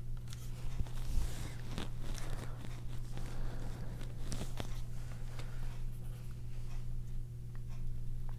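A paintbrush dabbing and stroking gouache onto sketchbook paper: short, irregular scratchy brushing sounds over a steady low hum.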